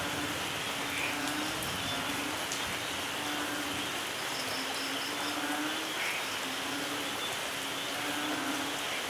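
Steady rain falling, an even hiss with no thunder. About four seconds in, a faint run of about six quick high chirps sounds over it.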